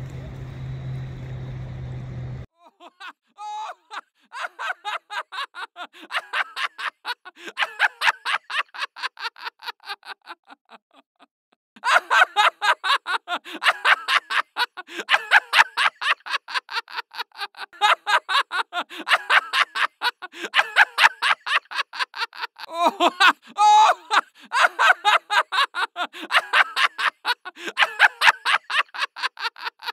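A steady low hum for the first couple of seconds, then loud, continuous human laughter: rapid ha-ha-ha pulses about four a second, with a short break about ten seconds in.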